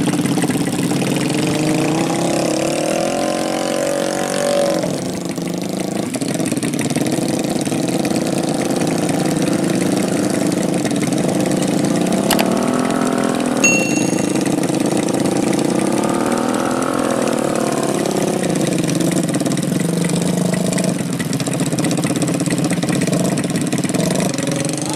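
Small motorcycle engines running under load in deep mud, revving up and dropping back several times as the bikes strain to move. A short high-pitched ring sounds about halfway through.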